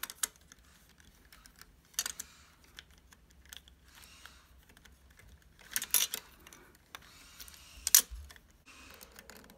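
Hard plastic 3D crystal puzzle pieces clicking and clacking as they are pushed together by hand, a stiff piece being forced that won't seat. Scattered sharp clicks, with a cluster about six seconds in and the loudest click about eight seconds in.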